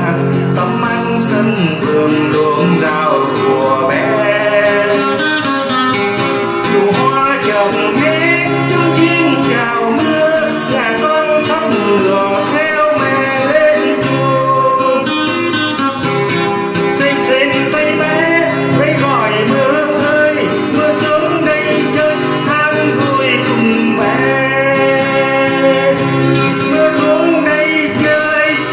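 A man singing a Vietnamese song to acoustic guitar accompaniment.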